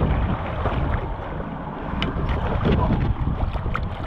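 Wind buffeting the microphone over the low rumble of the boat's motor, with a few brief splashes from a hooked almaco jack thrashing at the surface beside the hull.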